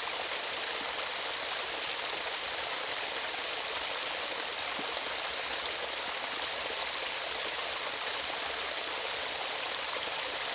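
Running water of a stream or small waterfall, a steady even rush.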